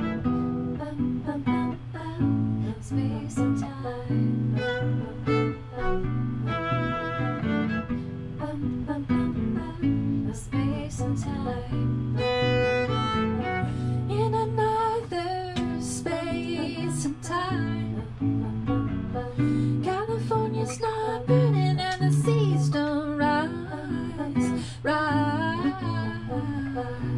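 Acoustic guitar and violin playing a song together, with a woman singing over them in the second half.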